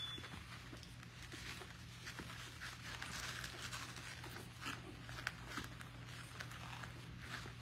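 Puppies moving about on their bedding: a scatter of small scratches, taps and rustles over a steady low hum.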